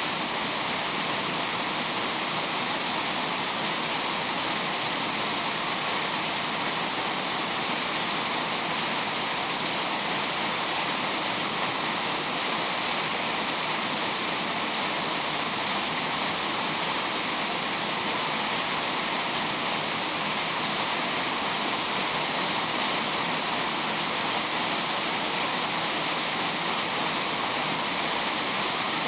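Running water rushing steadily: a continuous, even hiss.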